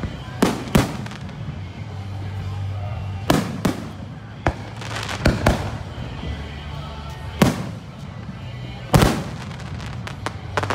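Aerial fireworks going off: about ten sharp bangs at irregular intervals, some in quick pairs, the loudest near the end.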